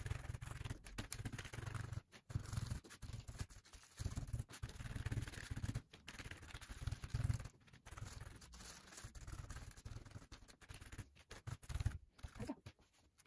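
Faint rustling and scraping as a kitchen sponge dabs acrylic paint onto crinkled aluminium foil on paper and is reloaded from a paper plate, with dull knocks on the table and short pauses between dabs.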